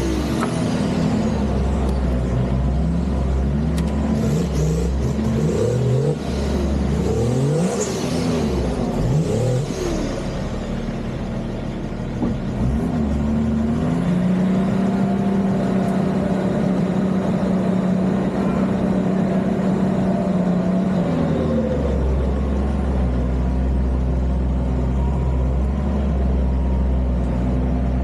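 Off-road 4x4's engine revving in a string of short rising and falling surges, then holding a steady higher pitch for several seconds, then settling into deep low running.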